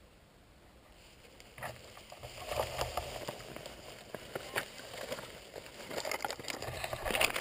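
Close rustling and scraping with small clicks, starting about a second and a half in, from a hunter shifting and handling his shotgun with the camera mounted on it. A busier burst of clicks comes near the end.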